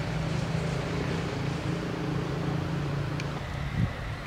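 An engine running steadily with a low hum, over a wash of outdoor and wind noise; a single dull thump a little before the end.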